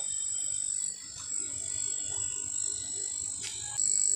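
Steady high-pitched chorus of calling frogs and insects around fish ponds, with a single click about three and a half seconds in.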